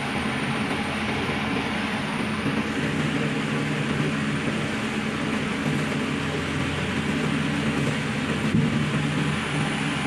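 Diesel generator set on a rubber-tyred gantry crane running steadily, a constant low engine drone, while the crane's electric hoist works a suspended steel block.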